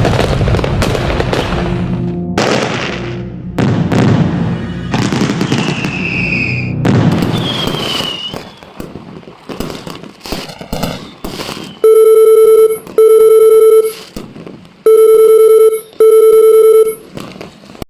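Fireworks going off: a dense run of bangs and rumbling, with a couple of falling whistles, that thins out about halfway through. Near the end a steady electronic tone beeps four times, in two pairs, each beep nearly a second long.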